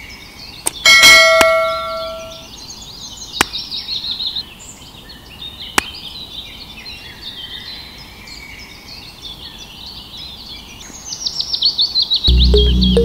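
A loud, bright bell ding about a second in, the notification chime of a subscribe-button animation, just after a couple of mouse clicks. Birds chirp throughout, a few sharp clicks come later, and music starts near the end.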